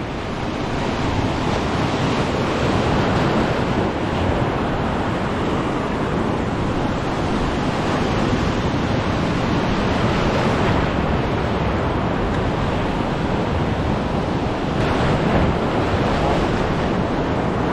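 Ocean surf breaking and churning around shoreline rocks, a steady rushing wash that swells slightly near the end, with wind buffeting the microphone.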